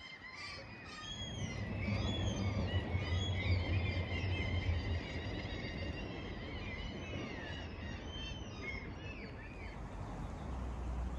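Small birds chirping and singing, many short rising-and-falling calls that thin out near the end, over a low rumble that is loudest in the first few seconds.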